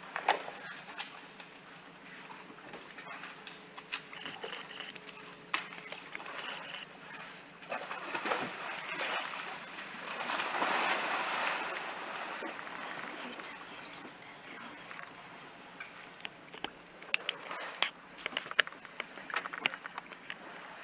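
Bornean pygmy elephant splashing as it slides into a muddy river and wades, the water loudest about eight to twelve seconds in, over a steady high-pitched insect drone. Scattered sharp clicks come near the end.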